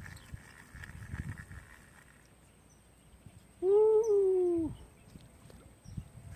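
A single animal call about a second long, a little past halfway through, rising slightly and then falling.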